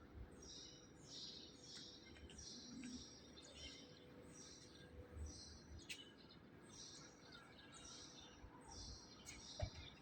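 Faint bird chirping: short, high, falling chirps repeated about twice a second, over a low background rumble.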